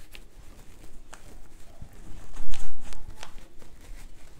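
Hands working a towel and tearaway stabilizer into an embroidery hoop on a table: fabric rustling and light clicks of the hoop, with a louder cluster of bumps about halfway through.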